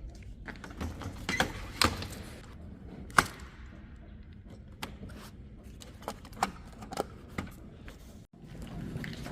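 A series of sharp clicks and knocks, about eight spread over several seconds, the loudest about three seconds in; the sound cuts out abruptly near the end.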